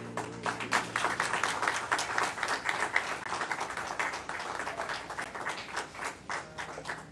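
Congregation applauding at the end of a song, with the accompaniment's last held note fading away in the first moment. The clapping thins out near the end.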